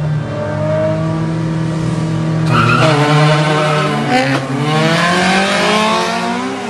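Car engines revving hard as cars accelerate, their pitch climbing, with tire squeal joining about two and a half seconds in and fading near the end.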